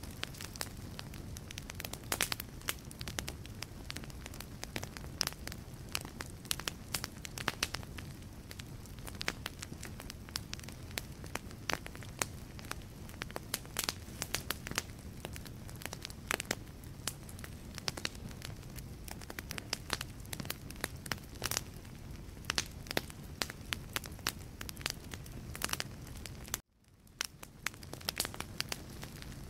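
Logs burning in a fireplace, crackling and popping irregularly over a low steady rumble of flame. The sound cuts out abruptly about 27 seconds in and fades back in.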